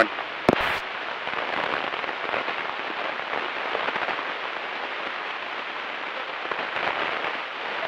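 Steady hiss and crackle of the aircraft's radio and intercom audio between transmissions, with one sharp click about half a second in.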